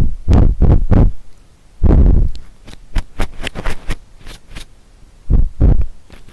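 Ear-cleaning tools (a bamboo ear pick and a fluffy bonten) working on a binaural microphone's ear. There are a few heavy, muffled brushing rubs, then a run of quick small scratches and clicks, then two more rubs near the end.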